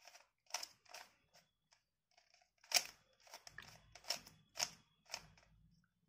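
Plastic 3x3x3 speed cube being turned by hand: a series of sharp clicks and snaps as the layers rotate, irregularly spaced, the loudest a little under three seconds in. The turns are the algorithm R U R' U R U2 R' (the Sune), used to orient the last layer's yellow pieces.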